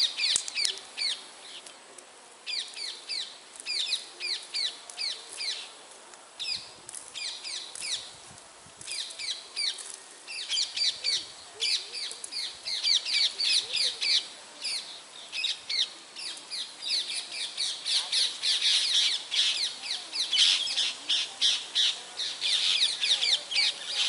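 Small birds chirping in quick, high, short notes, many overlapping, in bursts with brief lulls.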